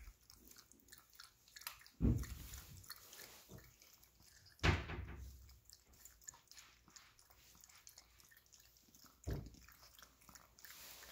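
A puppy crunching dry kibble from a stainless steel bowl: faint small crunches and clicks, with a few dull thumps, three of them louder, about two, five and nine seconds in.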